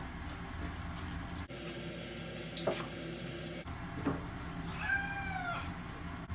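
Long-haired tabby cat giving one drawn-out meow about five seconds in, rising then falling in pitch, as it is washed in a tub of soapy water.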